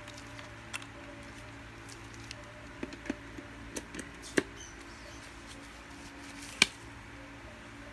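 Scattered light clicks and knocks of a plastic phone charger and USB cable being handled and plugged into a power socket, with one sharper click near the end, over a steady low hum.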